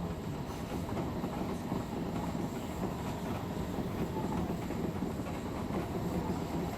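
Odakyu Line electric express train running steadily along the track, with the rumble of wheels on rails and a faint steady hum, heard from inside the leading car.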